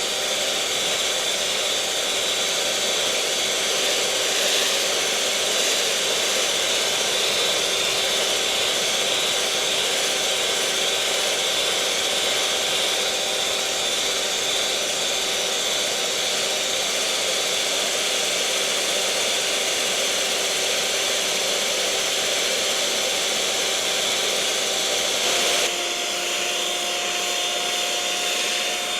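Electric mixer motor running steadily: a whirring hiss with a steady whine over it. Near the end it shifts abruptly to a slightly lower pitch and a little less hiss.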